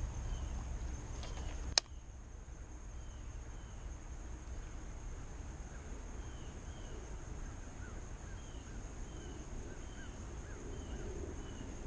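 Lakeside outdoor ambience: a steady high-pitched insect drone, with short falling bird chirps repeating throughout, over a low rumble. A sharp click sounds about two seconds in.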